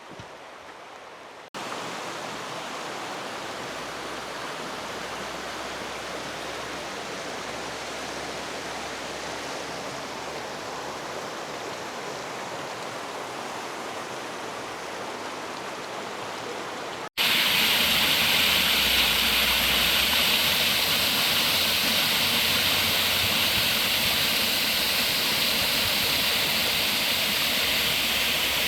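Rushing river water, a steady wash of noise in three edited stretches: quieter for the first moment or two, then even, and louder and brighter from about two-thirds of the way through.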